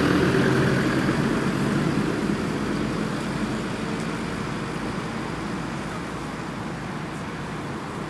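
Massey Ferguson tractor's diesel engine running steadily under load as it pulls a mounted reversible plough through the soil, fading as it moves away.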